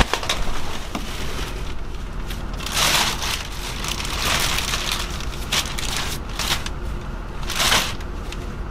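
Black plastic garbage bag rustling and crinkling in several short bursts as it is handled and filled, the loudest about three seconds in and again near the end.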